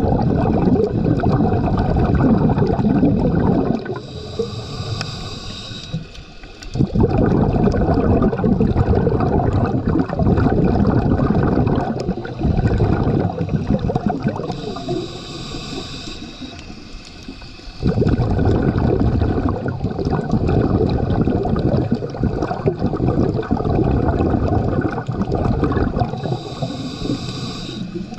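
Scuba diver breathing through a regulator underwater: long exhalations of low bubbling, broken three times by a shorter, quieter inhalation with a high hiss, roughly every ten seconds.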